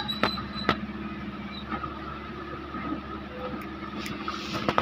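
Off-road jeep's engine running steadily at low revs as the vehicle crawls through mud, with a few sharp knocks.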